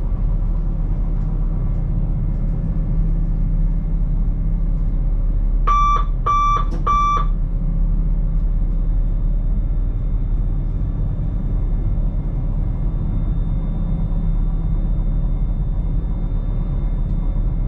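Steady low rumble of an electric train running along the track, heard from inside the driver's cab. About six seconds in, three short electronic beeps sound in quick succession, a cab warning or signal tone.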